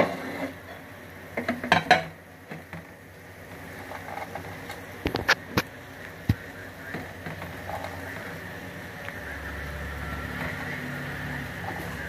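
Sharp clinks and knocks of a utensil against a metal cooking pot as spices are put into the water and stirred, a cluster near two seconds in and again about five seconds in, over a steady bubbling hiss of water simmering in the pot.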